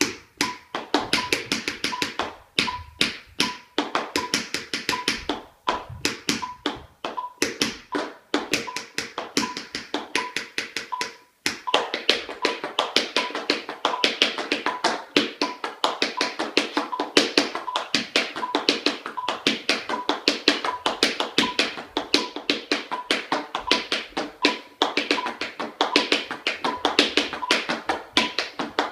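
Tap shoes on a wooden floor in fast, continuous tap rhythms, over a metronome beeping evenly at 80 beats per minute. The taps stop for a moment about eleven seconds in, then carry on.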